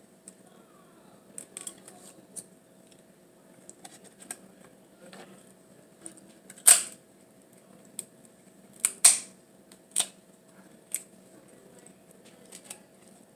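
Cooked lobster shell being cracked and picked apart by hand: scattered sharp snaps and clicks. The loudest snap comes about halfway through, with a few more close together over the next few seconds.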